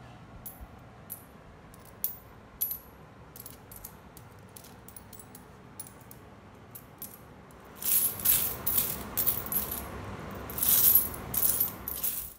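Indian rupee coins clinking as they are sorted by hand into piles on a cloth: scattered light clinks at first, then a busier stretch of clinking over the last few seconds.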